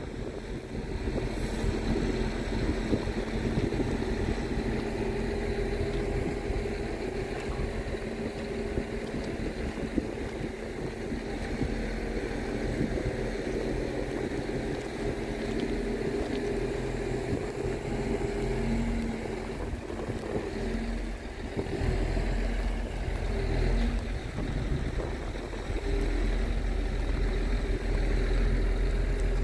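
Scania R truck's diesel engine running steadily while its loader crane is worked, the boom moving under hydraulic power. The engine's note shifts briefly a little past two-thirds of the way through.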